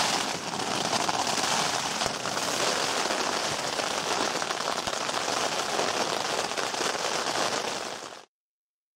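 Steady rain pattering on a tent's flysheet, a dense hiss of many small drop ticks. It cuts off about eight seconds in.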